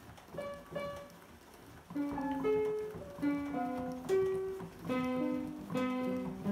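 Roland JV-90 synthesizer notes triggered by an Aeolian push-up piano player reading a paper roll: two short notes about half a second in, then from about two seconds in a melody with chords.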